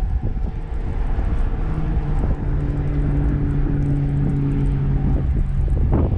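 Wind buffeting the microphone as a heavy low rumble. Through it runs a steady, even-pitched mechanical drone that comes in during the first two seconds and stops shortly before the end.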